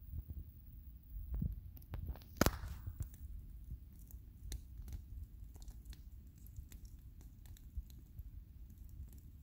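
Large wood bonfire burning with a steady low rumble, crackling with scattered pops; one sharp, loud pop with a brief hiss after it about two and a half seconds in.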